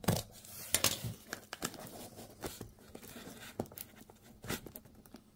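Small cardboard box being handled and picked open by hand: irregular clicks, scratches and small tearing and crinkling sounds of card and paper.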